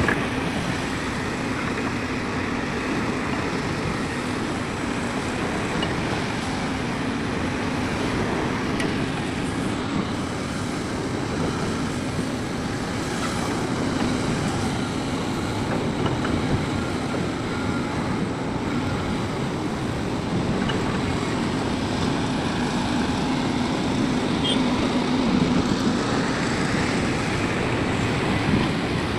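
Heavy earthmoving machinery running steadily: an engine under load with a low, even drone and no breaks.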